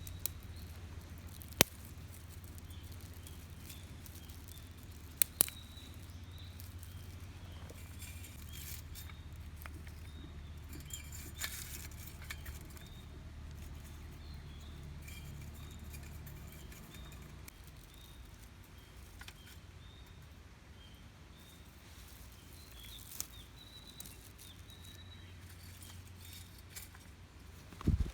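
Small wood fire crackling, with scattered soft ticks and a few sharp pops, the loudest about one and a half and five seconds in. A low steady hum underneath stops about two-thirds of the way through.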